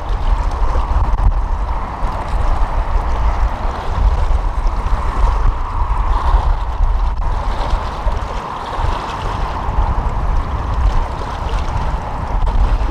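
Strong wind buffeting the microphone in a low, gusting rumble, over a steady wash of water.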